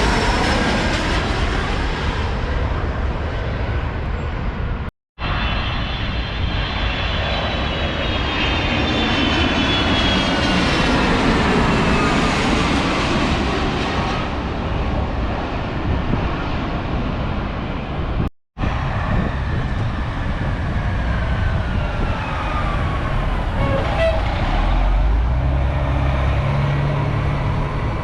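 Jet airliners passing low overhead on landing approach, their engine whine gliding down in pitch, with wind on the microphone. The sound drops out briefly twice. A low engine rumble joins near the end.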